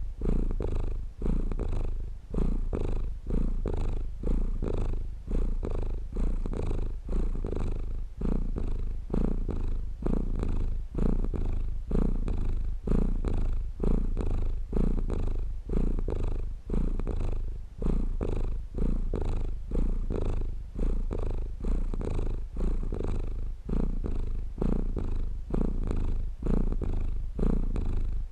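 Domestic cat purring steadily, the purr pulsing and swelling with each breath in and out.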